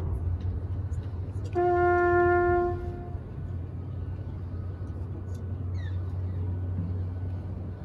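A brass or wind instrument sounds one steady, loud note about a second and a half in, held for just over a second, over a steady low rumble with crowd murmur.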